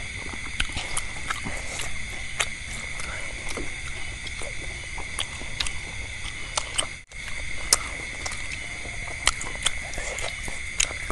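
Close-miked eating sounds: chewing of fried meatballs and vegetables, with wet mouth noises and scattered sharp clicks and taps, over a steady high-pitched hum. The sound drops out briefly about seven seconds in.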